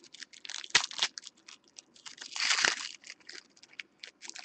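Wrapper of a pack of baseball cards being crinkled and torn open by hand: a run of crackles and sharp snaps, with the longest and loudest rip about two and a half seconds in.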